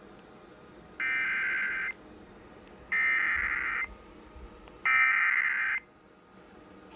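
Emergency Alert System SAME header: three bursts of buzzy digital data tones, each just under a second long and spaced about a second apart. It is the coded header that opens a weather radio alert.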